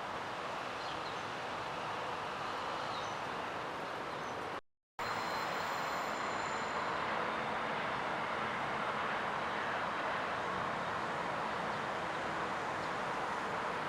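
Steady running noise of a train moving through the station. It is broken by a sudden brief dropout to silence about five seconds in, where one clip cuts to the next.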